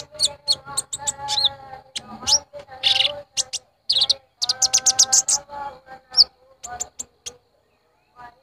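Kolibri ninja sunbird (konin) calling as a lure call: sharp, high chirps, short up-sweeping whistles and quick trills in rapid bursts. Under them runs a held, chanting voice, and the calls stop a second or so before the end.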